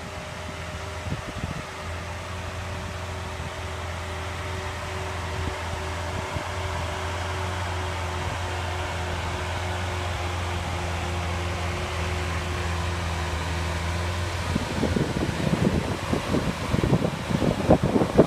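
A steady low mechanical hum with a few even tones, like a running fan. About fourteen seconds in it gives way to wind gusting on the microphone.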